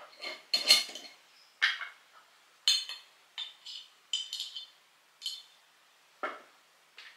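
A spoon clinking and tapping against a glass spice jar as ground spice is scooped out, about ten light, irregular clinks with a short glassy ring. The loudest comes about half a second in, and a duller knock follows near the end.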